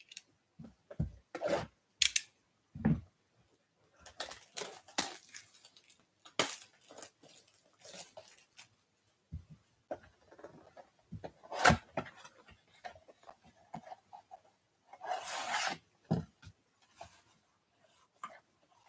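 A cardboard trading-card blaster box being handled and opened by hand: scattered taps, scrapes and rustles of cardboard, with a longer rustling tear about fifteen seconds in.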